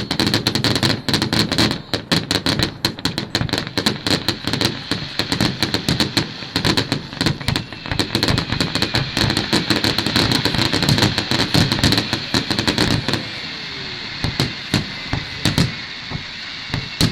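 Fireworks: a dense, rapid crackling of many small bursts, thinning about thirteen seconds in to a few scattered pops.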